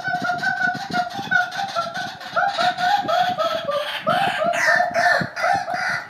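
White-breasted waterhen calling: a long, unbroken run of short repeated notes, several a second, growing louder and more uneven about two seconds in.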